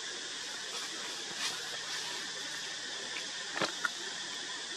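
Steady high-pitched hiss of forest background sound, with a short click about a second and a half in and two sharper clicks in quick succession near the end.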